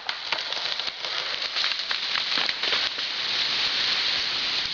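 A felled tree crashing down through branches: a quick run of wood cracking and snapping, giving way after about three seconds to a dense rush of shaking, swishing foliage as it comes to rest.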